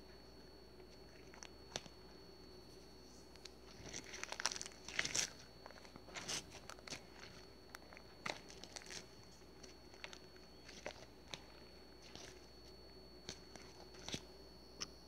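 Faint crinkling, rustling and clicking handling noises, in a cluster about four to five seconds in and then scattered clicks, over a faint steady electrical hum.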